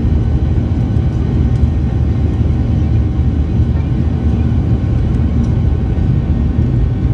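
Boeing 737's jet engines at takeoff thrust, a loud, steady deep rumble.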